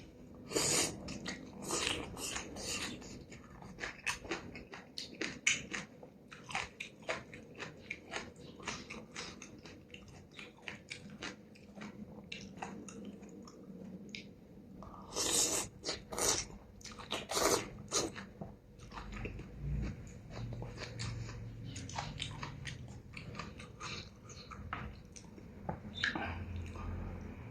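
A person chewing and eating noodle soup with stewed beef close to the microphone: a steady run of wet mouth clicks and smacks, with a burst of louder ones about halfway through.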